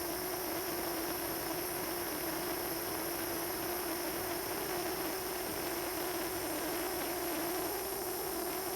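Jeweller's soldering torch flame running steadily, a hiss with a low drone under it. The torch is one its user thinks is a little low on fuel.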